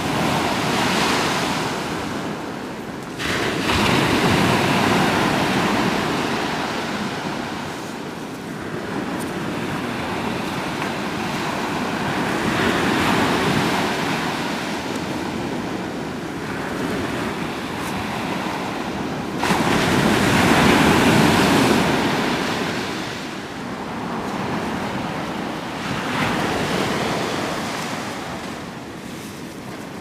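Ocean surf washing onto a beach: a steady rush of waves that swells loud and fades back several times, two of the surges breaking in suddenly, about three seconds in and again near twenty seconds.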